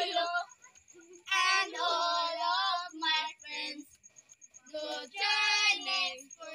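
Three young girls singing a Christmas carol together, in three sung phrases with short pauses between them.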